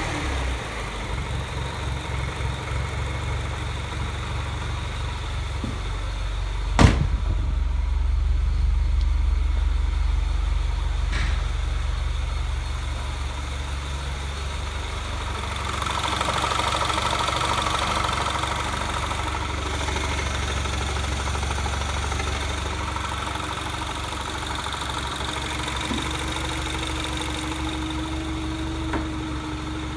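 Mini Cooper S R56's 1.6-litre turbocharged four-cylinder engine idling steadily after a timing-chain tensioner update, without chain rattle but with a noise the owner is unsure is normal. A single sharp click cuts in about seven seconds in, and a steady tone joins near the end.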